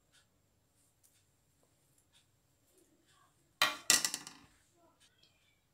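A spoon knocking twice against a kitchen container, sharp and close together, with a short ringing clatter after. A few faint clicks come before it.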